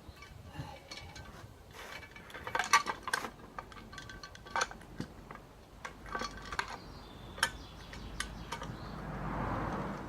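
Metal clinks and clicks of a chainsaw's cast magnesium-alloy top cover being handled and fitted back on, with a cluster of sharp knocks about two and a half seconds in and a soft rush near the end.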